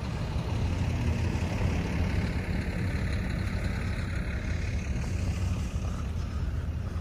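Street traffic: a vehicle's engine running with a steady low rumble.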